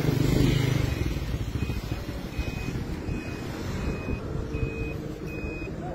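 An electronic beeper sounding a short high beep about every three-quarters of a second, starting a little over a second in, over the low rumble of an engine that is loudest in the first second.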